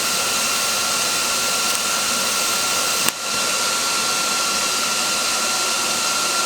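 TIG welding arc hissing steadily, with one sharp crack and a brief dip about three seconds in.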